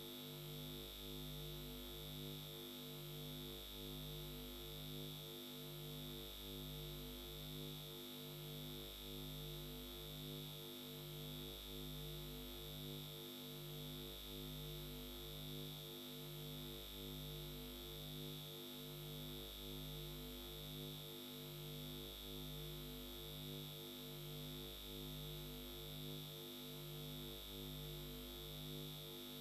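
Steady electronic drone: low tones pulsing about once a second under a constant thin, high whine.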